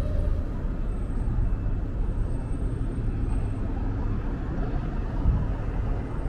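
City street ambience: a steady low rumble of road traffic, mixed with wind buffeting the microphone.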